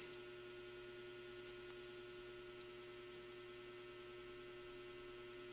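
Steady background hum with a constant high-pitched whine above it, unchanging throughout, with no other sounds.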